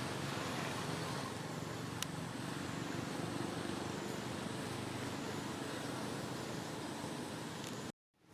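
Steady low rumble of motor-vehicle engines with a haze of background noise, and one sharp click about two seconds in. The sound cuts out abruptly just before the end.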